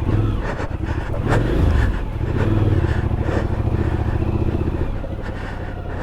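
Twin-cylinder adventure motorcycle engine running at low revs on a rough trail. The throttle is opened briefly about a second in and again near the middle, each time raising the revs for a moment.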